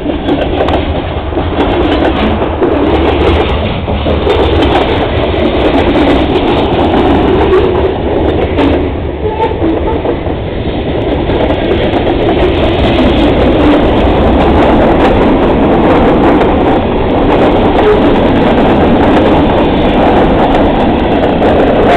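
CSX freight train passing very close: loud, steady rumble of wheels on the rails with the clickety-clack of the cars going by.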